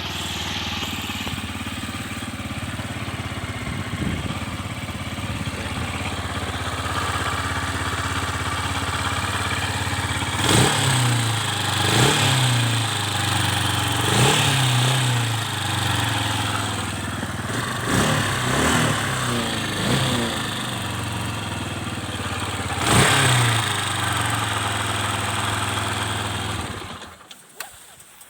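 Engine of a vehicle still being run in at about 200 km, idling and then blipped up in short revs several times before it is shut off near the end. The owner is unsure whether a knock can be heard in it.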